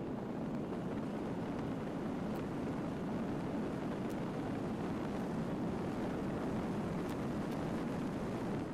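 Car driving on a loose gravel road: a steady rumble of tyre and road noise, with a few faint ticks of stones.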